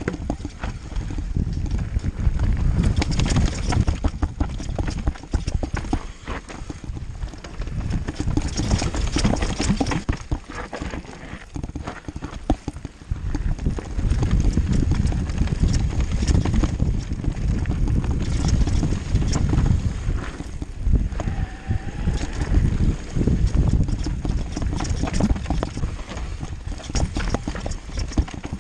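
Mountain bike riding fast down a rough dirt trail: a continuous rattle and clatter of the bike knocking over bumps and roots, with tyres on loose dirt and a heavy low rush of wind on the microphone.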